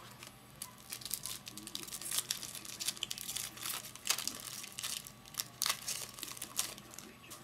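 Foil wrapper of a Topps Chrome trading card pack being torn open and crinkled by hand, with irregular crackles and rustles as the cards are pulled out.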